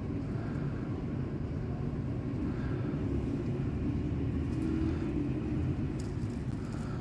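Steady low background rumble with a few faint light rustles near the end.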